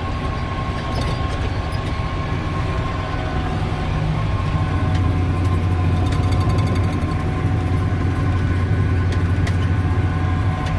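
John Deere 7700 tractor's diesel engine running steadily, heard from inside the cab, with a little more load and volume from about four seconds in.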